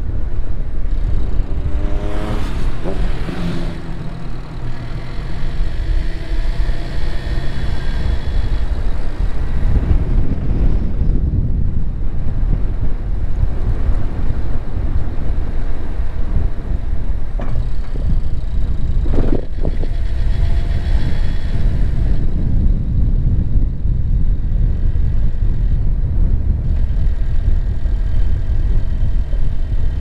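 A car driving, with a steady low rumble of engine and road noise. About two to four seconds in, the engine pitch rises and falls, and there is a brief knock a little past the middle.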